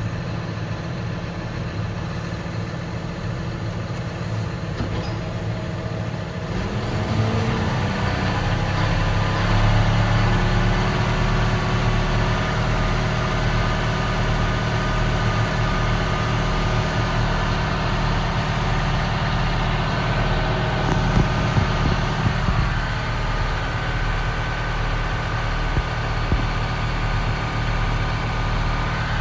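Tractor engine running a Massey Ferguson RB3130F Protec baler/wrapper. About seven seconds in the engine speeds up and gets louder, then holds steady with a steady machine whine over it.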